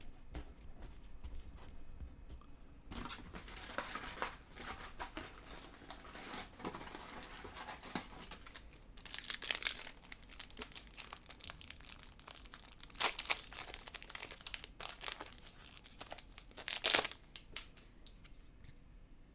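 Crinkling and tearing of a trading-card pack wrapper being handled and opened, in scattered faint rustles with a few sharper crackles near the middle and near the end.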